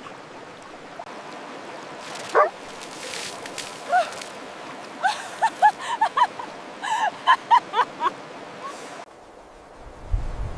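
A dog yipping in short, high-pitched yelps: one about two seconds in, another about four seconds in, then a quick run of about a dozen between five and eight seconds, over a steady background hiss.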